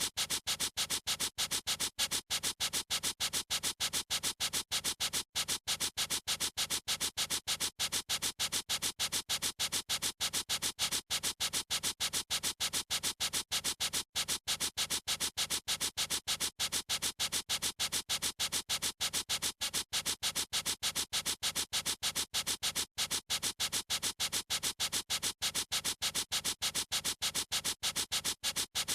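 Pen or pencil tip scribbling on paper in quick, evenly repeated scratchy strokes, about four a second.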